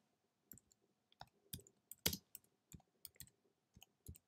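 Typing on a computer keyboard: about a dozen faint keystroke clicks at an uneven pace. The loudest comes about two seconds in.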